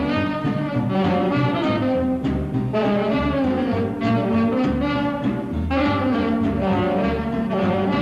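Instrumental break of a popular song: a dance orchestra with brass carrying the tune over a steady bass line.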